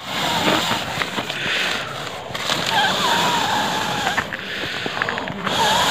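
Breath blown in long puffs onto a smouldering campfire of twigs and paper to make it catch, with a brief pause around two seconds in and a longer one near the end, and small crackles from the fire.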